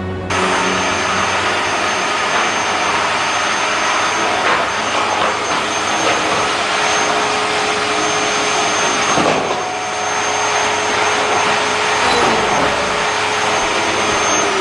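Canister vacuum cleaner switching on abruptly and running steadily with a high whine, its sound dipping briefly about two-thirds of the way through as it is worked over the floor.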